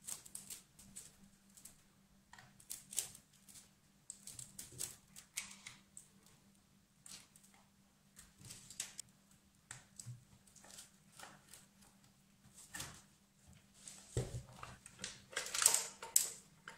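Small tool and metal parts inside an old General Electric telephone case clicking, tapping and scraping in irregular light strokes. A thump and a louder rattle of the metal chassis come near the end.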